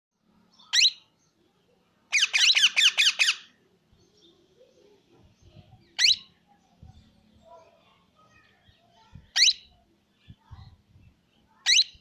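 Young plum-headed parakeet calling in short, sharp, high-pitched squawks. One call comes first, then a quick run of six or seven, then single calls a few seconds apart.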